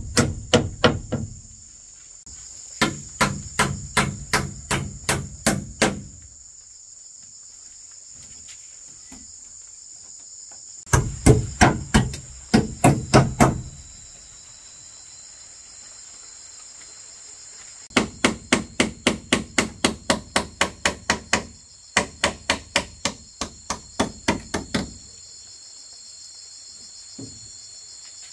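Runs of hammer blows at about three or four strikes a second, stopping and starting five times, typical of nailing together a chicken coop. A steady high drone runs underneath.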